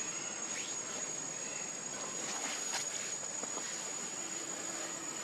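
Steady high-pitched drone of forest insects, with a few faint short clicks over it.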